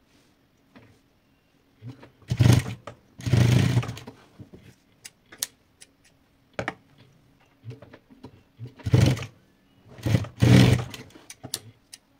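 Industrial sewing machine running in four short bursts of stitching, two about two seconds in and two near the end, over a faint steady motor hum. Light snips of scissors fall between the bursts.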